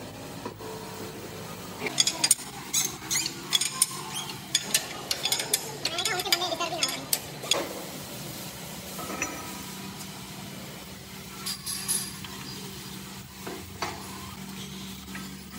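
Steel tools and parts being handled on a heavy manual lathe: a dense run of metal clinks and rattles in the first half, then a few scattered knocks, over a steady low machine hum.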